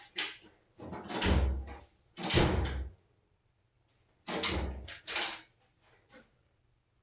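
Drawers sliding open and shut, with tools shifted about, in a search through storage for clamps. It comes as several separate noisy slides and clunks, the loudest about a second in, around two and a half seconds in, and again around four and a half to five seconds in.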